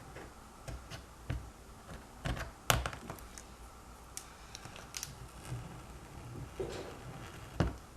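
Irregular light clicks and scrapes of a razor blade shaving cured UV-bonding glue off an iPhone 6 LCD's glass. A few sharper ticks stand out, the loudest about three seconds in and near the end.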